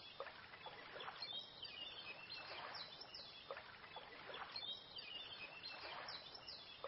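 Small birds chirping over a faint, steady outdoor hiss, with soft swishes about every second.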